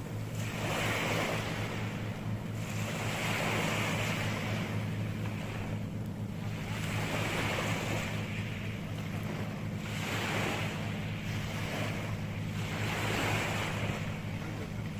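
Sea waves washing onto the shore, the surf swelling and falling back about five times, over a steady low rumble.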